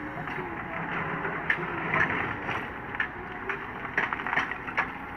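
Sumitomo SH130LF hydraulic excavator running steadily while its bucket digs into rocky gravel, with sharp clacks of stone on steel about two seconds in and again several times near the end.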